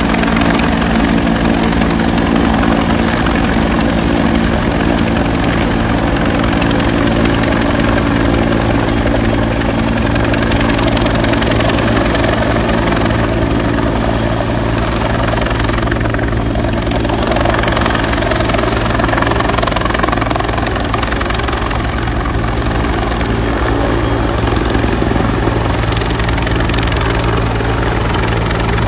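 Two-bladed helicopter hovering low overhead, its rotor and turbine engine running with a loud, steady drone; the tone shifts a little after the middle.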